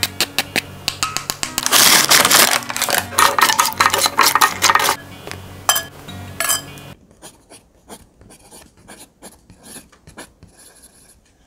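Crisp sweet potato chips and parchment paper crackling and rustling as the chips are handled with tongs: a dense run of sharp crunches and clicks that thins to faint scattered clicks about seven seconds in.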